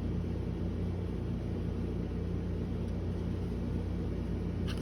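Steady low background hum, even in pitch and level, with a couple of faint clicks near the end.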